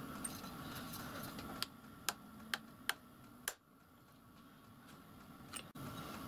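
A small hammer tapping a steel number stamp to mark the figures on a lathe's graduated dial: five sharp taps about half a second apart, then one fainter click near the end.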